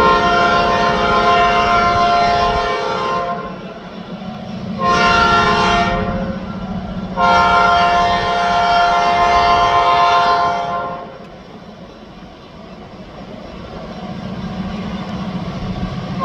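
Multi-chime air horn of an EMD SD9 diesel locomotive. It sounds a long blast that ends about three seconds in, then a short blast around five seconds, then a long blast of about three and a half seconds, the closing part of a grade-crossing signal. The locomotive's diesel engine rumbles steadily underneath.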